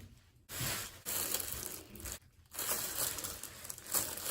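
Plastic bread bag crinkling as it is handled and opened, in two stretches with a short pause between.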